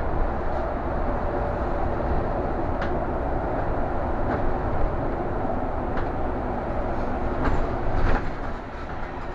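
Inside a moving city bus: a steady low running rumble with scattered knocks and rattles, dropping quieter near the end.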